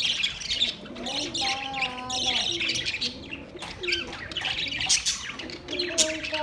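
Budgerigars chattering, with many quick, overlapping high chirps and warbles.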